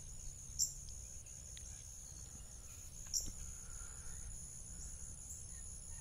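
Steady, high-pitched chorus of insects droning without a break, with two short, sharp chirps standing out about half a second and three seconds in.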